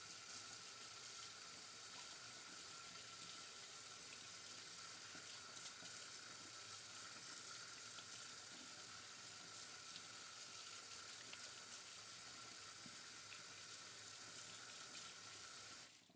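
Kitchen tap running, water splashing over hands and into the sink: a steady hiss that cuts off suddenly near the end.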